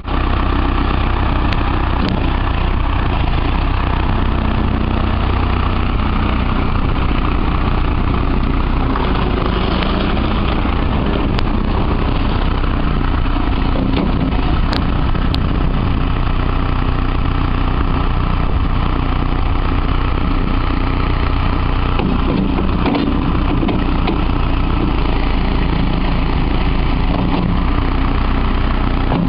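Case 40XT skid steer's diesel engine running steadily.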